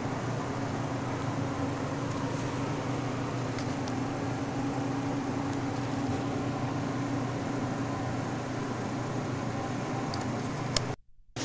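Steady mechanical hum and hiss, like a fan or ventilation running, that cuts out abruptly for a moment near the end.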